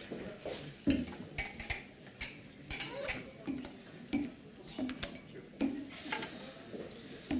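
Champagne flutes being handled and set down on a wooden table: a scatter of light glass clicks and knocks, with a few short high rings.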